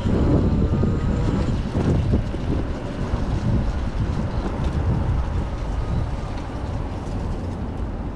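Wind buffeting the microphone of a camera on a moving bicycle, over a low rumble of passing city traffic and tyres hissing on a wet road.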